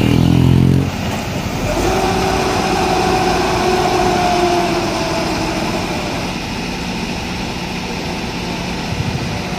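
Heavy diesel engines of a Mitsubishi Fuso wrecker running under load while its crane hoists, loudest in the first second. From about two seconds in, a steady whine runs for about three seconds and sinks slightly in pitch.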